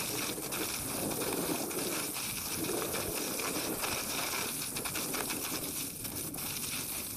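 Mountain bike rolling downhill on a rough trail: a steady rush of tyre and moving-air noise with many small clicks and rattles from the bike and the ground.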